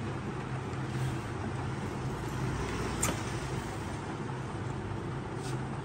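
Steady background rumble and hiss with a low hum, and one sharp click about three seconds in.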